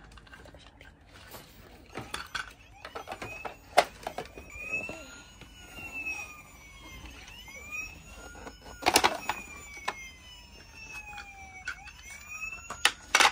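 Electronic siren of a Happyland Lights & Sounds toy ambulance, a wail that rises and falls over and over, starting about three seconds in. Sharp clicks and knocks of its plastic parts being handled sound over it, the loudest about nine seconds in and again near the end.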